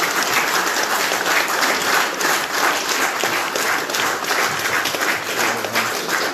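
Audience applauding: many people clapping steadily together.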